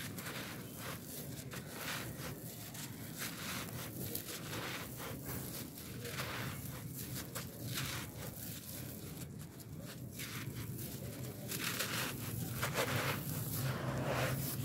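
Dry, packed sand with embedded fine gravel crumbled by hand, crunching and pouring down onto loose sand in repeated gritty rushes that grow louder near the end.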